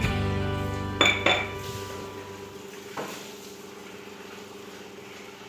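Metal kitchen utensils clanking against a kadai: sharp ringing clinks about a second in, again just after, and once more at about three seconds. Background music fades out under them.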